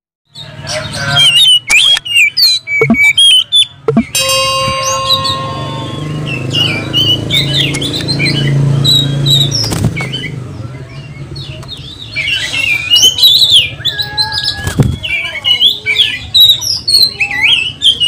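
Oriental magpie-robin (kacer) singing loudly in rapid, varied chirps, whistles and harsh notes, over a steady low hum. A brief steady tone with overtones sounds about four seconds in.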